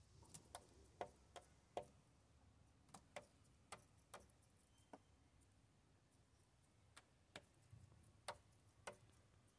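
Australian magpie's beak tapping and pecking on a plastic wheelie bin lid as it picks off maggots: an irregular run of sharp taps, with a lull in the middle.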